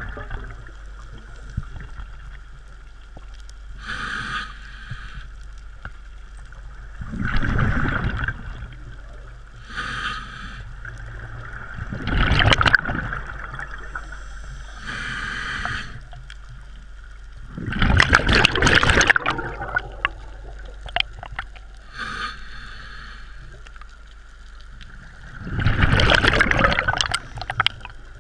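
Scuba diver breathing through a regulator underwater: a short hiss on each inhalation, then a louder burst of bubbling exhaust a few seconds later, about four breaths in all.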